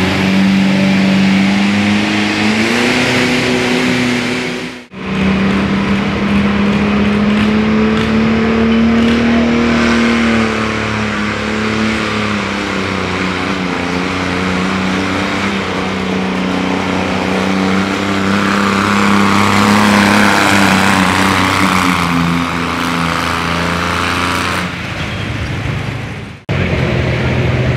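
Diesel garden pulling tractor engine running hard at high revs while pulling a sled. Its pitch sags a little mid-pull and climbs again. The sound drops out abruptly twice, about five seconds in and near the end.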